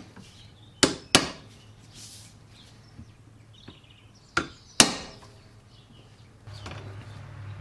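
Hammer blows on the bent steering arm of a Countax C300 lawn tractor, clamped in a bench vise, to straighten it: four sharp strikes in two pairs, one pair about a second in and the other near five seconds, with a couple of light taps between.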